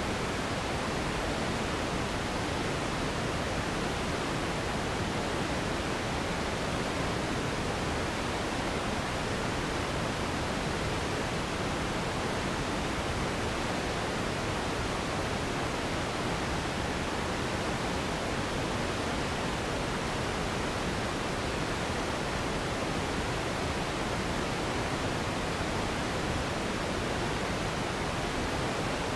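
Steady generated noise for sleep: an even, unchanging hiss with no rhythm, tones or events.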